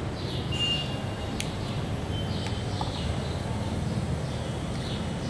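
Steady low background rumble with a few faint, short high chirps and ticks scattered through it.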